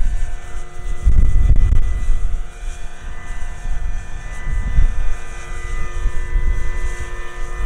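Electric scale model helicopter, a Vario Dauphine AS 365, lifting off and flying past: a steady whine from its electric motor and rotor, over a gusty low rumble.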